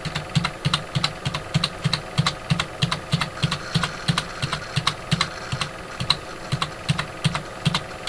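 A computer keyboard's left arrow key tapped over and over, about three to four even clicks a second, stepping a video-editing timeline back frame by frame.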